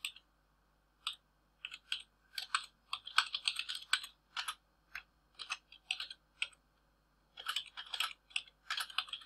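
Computer keyboard typing: irregular runs of keystrokes, with a short pause about seven seconds in.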